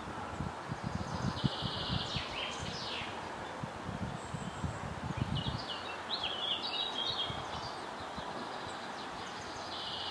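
Songbirds singing in woodland, one bird repeating a short phrase of a quick even trill followed by a few falling notes, and another chirping in between, over a steady hiss of leaves and air. Low wind rumble on the microphone through the first half.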